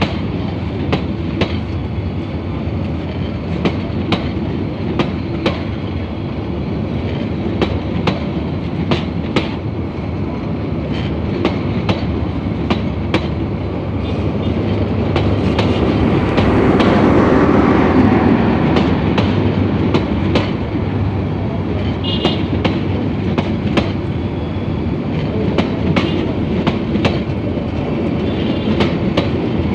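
Bangladesh Railway intercity passenger coaches of the Subarna Express rolling past close by: a steady rumble with the wheels clacking over the rail joints in a regular clickety-clack. It grows louder and hissier for a few seconds around the middle.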